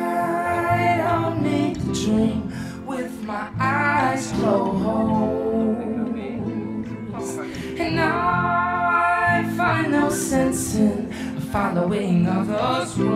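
Background music: a song with a voice singing over guitar.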